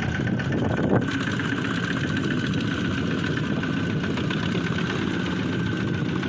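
Single-cylinder diesel engine of a Kubota ZT155 two-wheel tractor running steadily under load as it hauls a trailer through deep mud.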